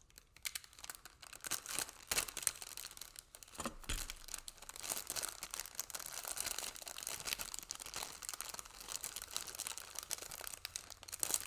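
Plastic polybag holding Gunpla model-kit runners being handled and torn open, with irregular crinkling and crackling throughout.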